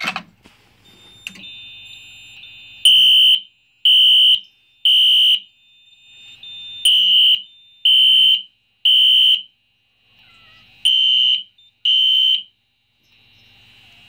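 A Simplex 4099-9001 pull station's handle is pulled down with a click, then a Wheelock NS4-2415 horn sounds loud half-second blasts in the temporal code 3 pattern: three blasts, a pause, three more, a pause, then two before it is silenced. A fainter steady high tone runs under the blasts and goes on after the horn stops.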